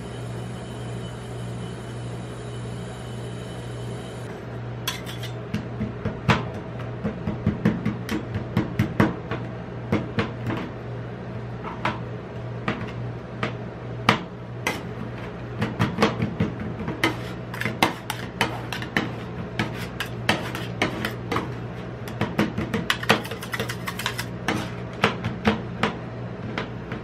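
Metal spatula blades chopping and tapping rapidly on a stainless steel rolled-ice-cream cold plate, breaking up chocolate in the milk base, with scraping as the mix is spread. The irregular sharp clicks start about five seconds in, over a steady low hum.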